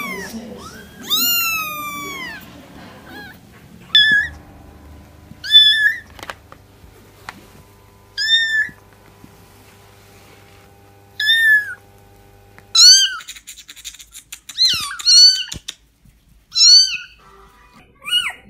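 Kittens meowing: high-pitched mews a few seconds apart, some sliding down in pitch, then a quicker run of cries near the end.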